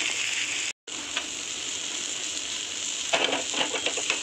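Oil and vegetables sizzling steadily in a nonstick frying pan as crispy-fried prawns are added. About three seconds in, a slotted nylon spatula starts scraping and stirring them through the pan. The sound drops out completely for a moment under a second in.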